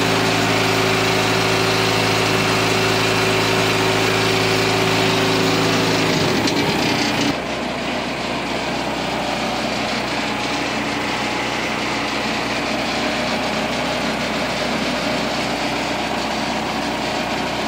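Cable reel machine's engine running steadily at idle after a hard start. About six seconds in, the steady hum breaks off, and a rougher, noisier engine sound goes on.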